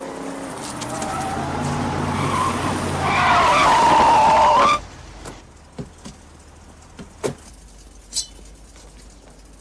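A car engine getting louder as it speeds in, then tyres squealing as it brakes hard, cut off suddenly about five seconds in. After that come a few sharp knocks.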